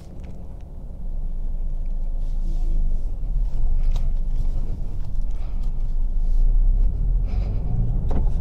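Honda City sedan's petrol engine and road noise as a low, steady rumble inside the cabin while the car pulls away, getting louder about a second in.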